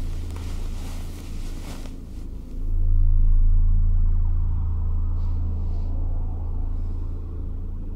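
Deep, steady rumbling drone of a horror film's sound design, swelling louder about two and a half seconds in, with a soft rustle over the first two seconds.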